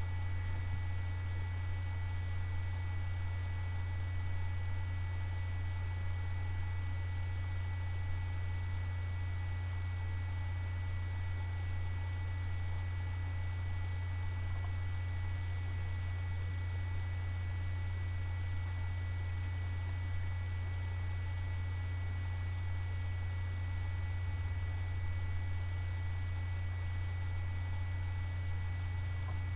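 Steady low electrical hum with a thin high whine and an even hiss, unchanging throughout; no other sound.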